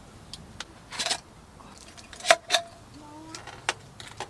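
Scattered clicks and clinks of small hard objects being handled, a couple of them ringing briefly about two seconds in, with a short squeak a little later.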